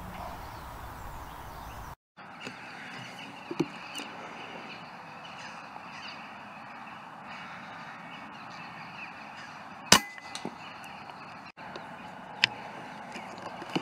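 Corvids cawing in the background. About ten seconds in comes a single sharp report from a Daystate Delta Wolf PCP air rifle being fired, the loudest sound, and a second, smaller sharp click follows a couple of seconds later.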